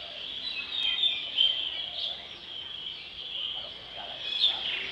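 Many small birds chirping and twittering at once, a steady high-pitched chorus, with a few louder chirps standing out about a second and a half in and near the end.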